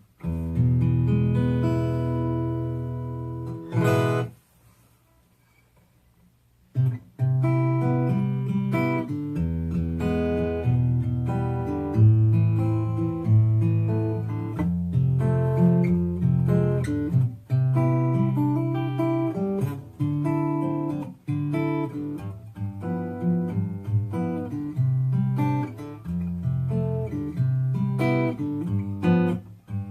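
Steel-string acoustic guitar, a Sitka spruce triple-O style build, amplified through its LR Baggs Anthem-SL pickup and an acoustic amp. A chord rings out, a sharp strum comes about four seconds in, then a short pause. After that a finger-picked tune with a strong bass line plays to the end.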